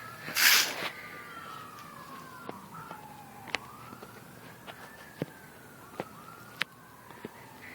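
A siren wailing, its pitch slowly rising and falling over and over. A short loud burst of noise comes about half a second in, and sharp clicks are scattered through the rest.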